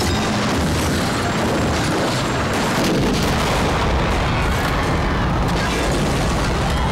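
Helicopter exploding in mid-air: a dense, sustained blast rumble that grows heavier in the bass about three seconds in.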